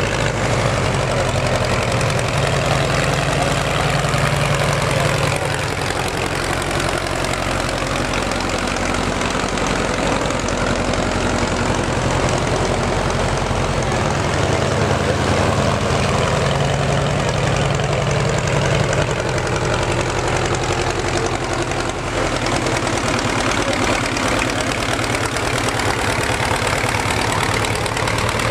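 Farm tractor engines running steadily at low speed, their pitch shifting a little now and then, as tractors tow the pulling sled back down the track and move up to hook on.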